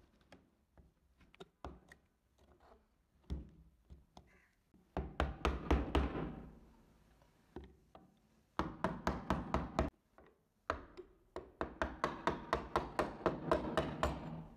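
Steel screwdriver knocking and scraping against the rusted nose cap at the muzzle end of a Mauser Kar98k rifle, working it loose. Three quick runs of sharp metallic knocks, about four or five a second, with pauses between, after a few faint clicks at the start.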